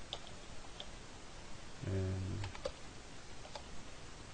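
Computer keyboard being typed on, with separate keystrokes spaced out rather than in a fast run. A short wordless voice sound comes about two seconds in.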